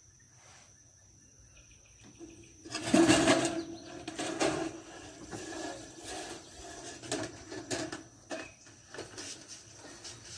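Sheet-metal roof rake trim clattering and scraping as it is handled against the edge of a metal roof, with a loud clatter about three seconds in and then scattered knocks and taps.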